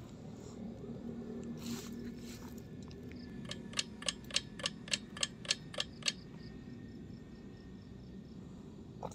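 A rapid run of about ten sharp clicks, roughly four a second, lasting about two and a half seconds, over a faint steady background; one more single click near the end.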